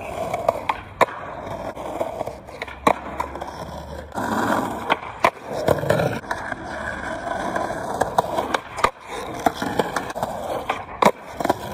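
Skateboards rolling on street asphalt, with several sharp clacks of tails popping and boards landing as tricks are done.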